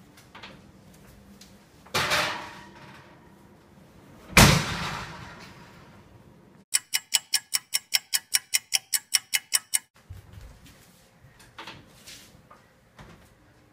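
An oven door being handled and then shut with a loud bang. Then a quick, even run of about fifteen short, sharp beeps, about five a second, lasting some three seconds. Near the end come a few faint clicks as the oven door is opened again.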